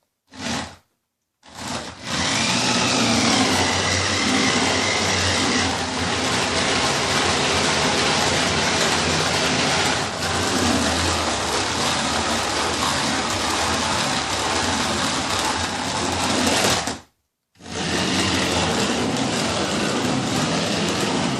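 Small electric motor running steadily with a whirring hum, likely driving a mini tornado spinner. It starts after a brief blip, stops for under a second late on, then runs again.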